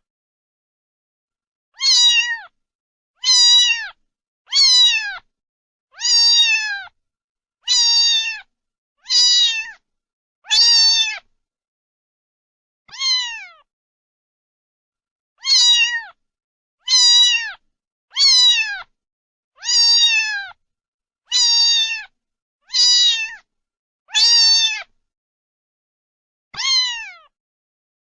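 A cat meowing over and over, about sixteen short meows each falling in pitch at the end, roughly one every second and a half with a couple of longer pauses.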